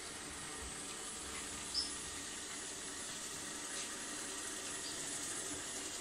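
ILIFE V50 Pro robot vacuum running: a steady fan whir and hiss, with one short high chirp about two seconds in.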